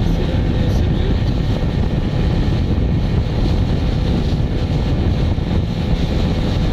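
A small boat's engine running steadily under way, with wind rumbling on the microphone.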